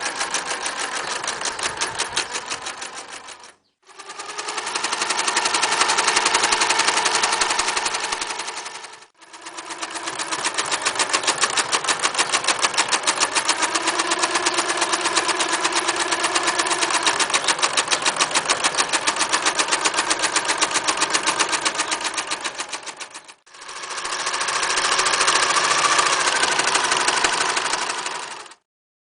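Singer Futura 1000 electric sewing machine stitching in four runs of rapid, even needle strokes. Each run speeds up and then slows to a stop, with brief pauses between runs, and the last run stops shortly before the end.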